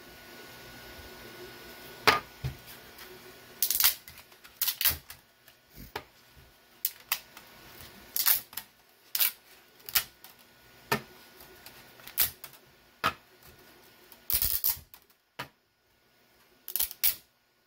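3D-printed plastic parts being handled and stacked on a desk: irregular sharp clicks and knocks of plastic against plastic and the desktop, roughly one a second.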